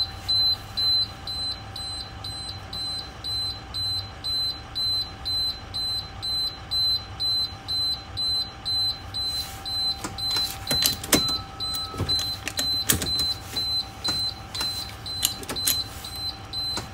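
Dashboard warning buzzer in a school bus cab, beeping steadily at a high pitch about twice a second while the key is on and the engine is not yet turning. From about ten seconds in, a series of sharp clicks and knocks sounds over the beeping.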